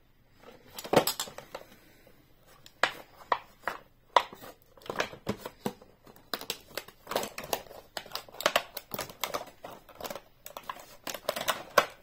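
Plastic blister pack of a Hot Wheels monster truck package being opened: a run of irregular sharp crackles, clicks and crinkling of the stiff plastic against the card.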